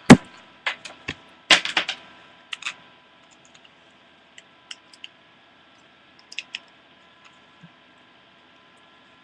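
A run of sharp clicks and knocks, loudest and closest together in the first three seconds, then thinning to faint scattered clicks that stop about three quarters of the way through.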